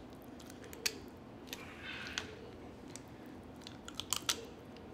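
Faint scattered metal clicks and soft scraping from a squeeze-handle ice cream scoop working a scoop of cauliflower mash onto a plastic cup, with a quick cluster of clicks about four seconds in.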